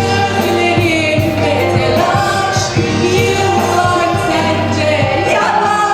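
A singer performing a Turkish pop song with a backing band, long held sung notes over a steady beat.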